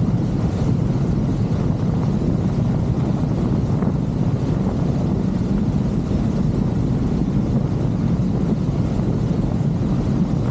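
Motorboat under way on open water: a steady low rumble of engine and water noise, with wind buffeting the microphone.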